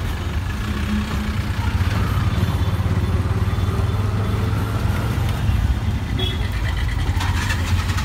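Auto-rickshaw (tuk-tuk) engine running steadily while the vehicle drives through traffic, a low drone heard from inside the open cab, with street traffic noise around it.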